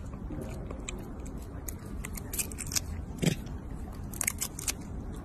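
A macaque biting and chewing a firm fruit: irregular crisp crunches over a low steady background, mostly in the second half, with one louder crunch a little past halfway.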